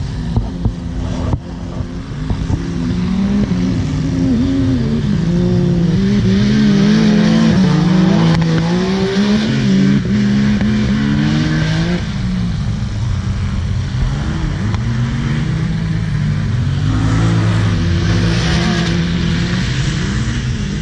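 Engines of off-road race machines racing on a dirt track, several at once, their pitch rising and falling as they rev up, shift and back off, loudest in the middle.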